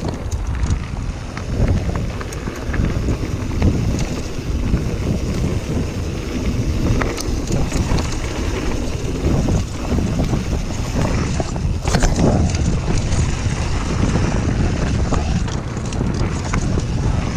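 Wind buffeting the microphone of a handlebar-mounted camera as a YT Jeffsy mountain bike rolls along a dirt woodland trail, with steady tyre rumble and frequent short rattles and knocks from the bike over bumps and roots.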